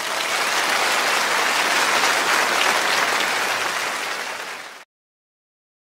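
Steady applause from a large crowd, fading out about four and a half seconds in.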